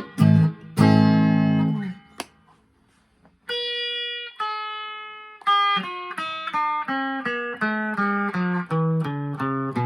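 1983/84 Made-in-Japan Squier Bullet electric guitar played clean: a strummed chord rings out, then after a short pause two held notes ring, followed by a quick run of single picked notes.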